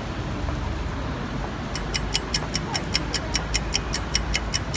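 Rapid, even ticking, about five ticks a second, starting a little under two seconds in and running about three seconds, over a steady hum of street traffic on a wet road.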